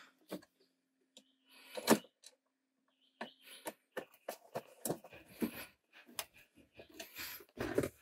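Irregular clicks, taps and knocks of a hand tool and plastic console parts being handled at the car's shift lever, the loudest knock about two seconds in.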